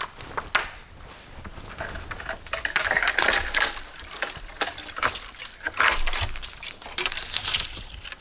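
Crunching and crackling of dead branches and snow being handled and trodden, an irregular run of short crunchy bursts with sharp snaps, heaviest a few seconds in and again near the end.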